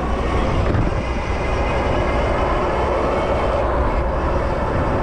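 Steady wind rush on the microphone of a moving electric bike, mixed with city traffic noise, with a strong low rumble.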